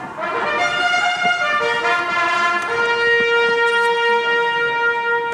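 Instrumental music in a brass or trumpet-like tone: a short run of held notes changing about every second, then one long held note through the second half.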